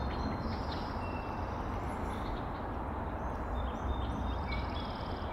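Steady low outdoor rumble, with faint, short, high bird chirps now and then.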